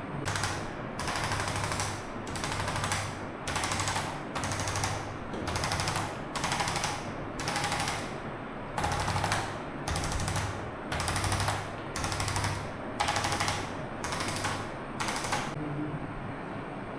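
Short bursts of fast mechanical rattling, each about half a second long, repeated roughly once a second some sixteen times, with two slightly longer gaps, and stopping about a second and a half before the end.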